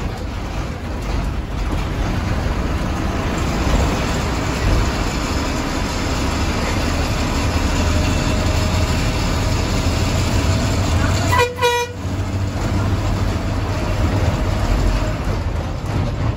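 A moving bus's engine and road noise run steadily, heard from on board. About two-thirds of the way through, a vehicle horn toots once, briefly.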